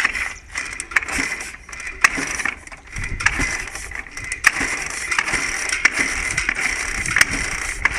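A Ural motorcycle's flat-twin engine being kicked over with the kick-starter, clattering and clicking without catching. It is a long-stored engine that will not fire on its old ignition. The heavier kicking strokes start about three seconds in.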